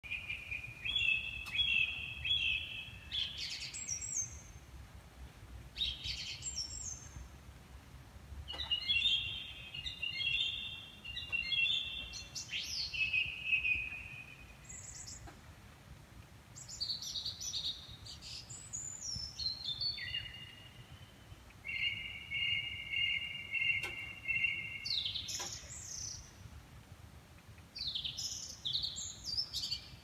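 Songbirds singing in the dawn chorus: a string of short song phrases a few seconds apart, some made of fast runs of repeated notes, others of quick rising and falling whistles.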